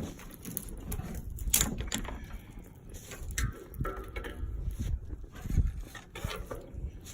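Wind buffeting the microphone in gusts, with a few sharp snaps or clicks scattered through it.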